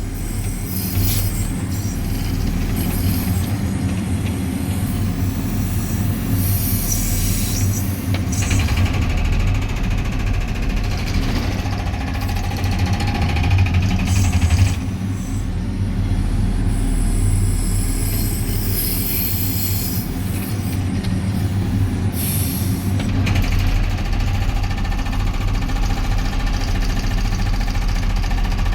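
JCB 3CX backhoe loader's hydraulic breaker hammering on a concrete block over the steady running of the machine's diesel engine, with bursts of high-pitched metallic ringing several times.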